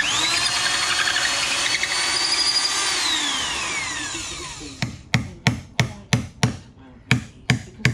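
An electric drill turning a large hole saw on a long bar into wood spins up, runs steadily for about three seconds, then winds down. From about five seconds in, a chisel is hammered into the wood inside the cut circle about three times a second, chopping out the waste.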